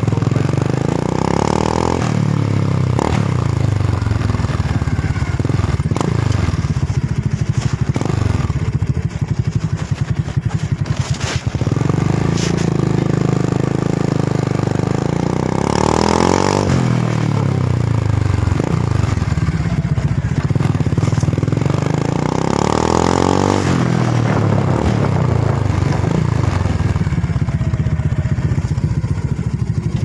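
Neptune 125 motorcycle engine running through an aftermarket Thai-made muffler, idling and blipped on the throttle again and again. Its pitch rises and falls with each rev, with the biggest revs about a second and a half in, about 16 seconds in and about 23 seconds in.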